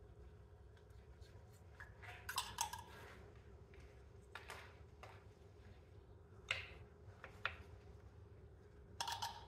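Scattered short scrapes and clicks of a primer dauber being worked around a PVC pipe and coupling and handled at its metal can, over a faint low hum.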